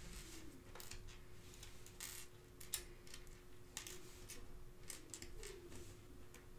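Irregular light clicks of small plastic Lego Dots tiles being handled and pressed onto a bracelet band. A faint steady hum runs underneath.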